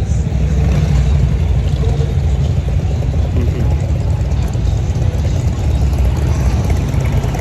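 Steady low rumble of a car in motion: road and tyre noise, with no break or change.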